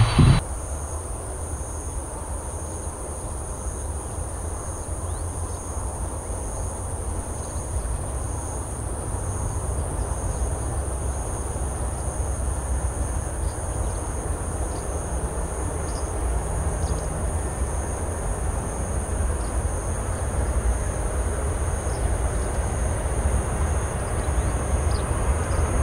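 Distant low rumble of a Qantas Boeing 747's jet engines on final approach, slowly growing louder, over steady insect chirping.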